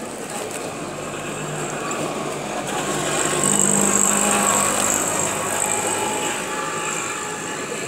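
A small motor vehicle's engine passing by, growing louder to a peak about four seconds in and then fading.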